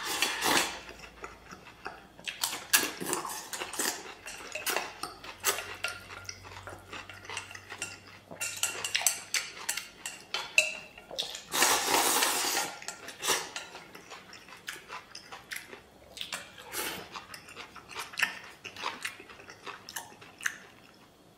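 Chopsticks clicking and scraping against a stainless steel bowl while eating, with one longer slurp a little past halfway.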